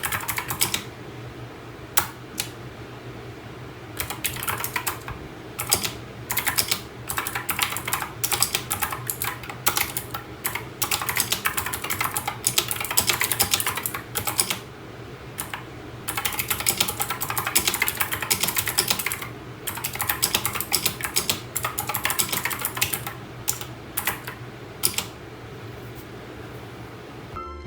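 Typing on a mechanical keyboard: bursts of rapid key clicks with short pauses between them.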